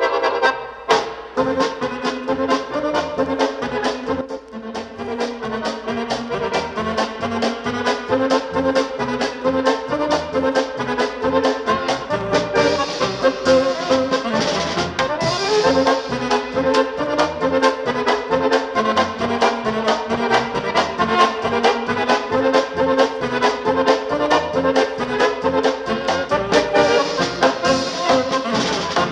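Polka band playing, with accordion and brass over a steady beat.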